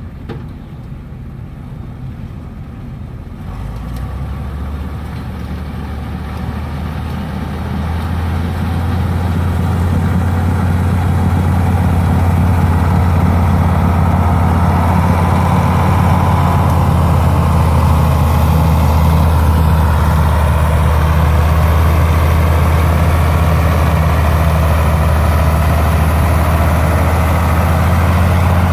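Heavy tractor engine running with a steady low hum, growing louder over the first ten seconds or so and then holding steady.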